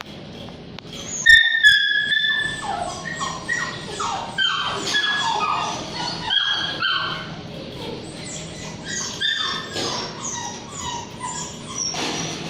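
Dog whining and yipping: a rapid string of short, high-pitched falling cries, about two to three a second, starting about a second in.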